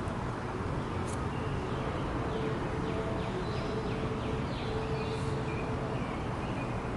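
Steady outdoor background rumble with faint, quick descending bird chirps repeating through it, and a faint steady hum that comes and goes.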